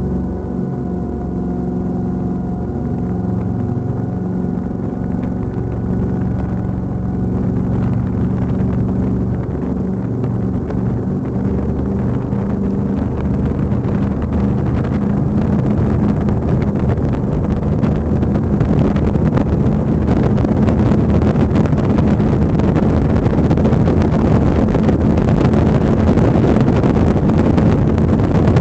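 Octane Marine performance boat's engines running with a steady drone, then gradually picking up as wind and water rush build up over it and the whole sound grows louder.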